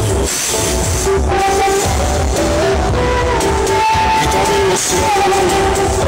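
Loud music with heavy, pulsing bass and a held melody line, blasted from a giant 'sound horeg' parade sound system.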